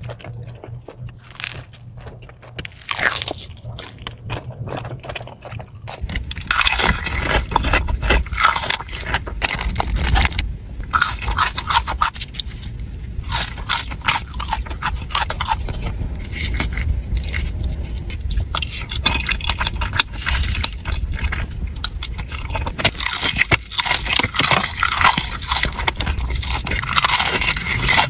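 Close-up eating sounds: someone biting and chewing crispy fried chicken, with dense crackling crunches of the breading, quieter at first and louder and busier after a few seconds.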